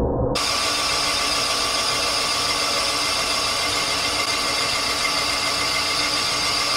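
Rottler boring bar running as it bores a cylinder of a Chevy small-block V8 block: a steady, high-pitched machine whine made of several constant tones, starting abruptly a moment in.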